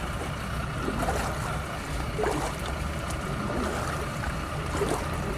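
Footsteps wading through shallow floodwater, sloshing and splashing every second or so, over a steady low mechanical hum.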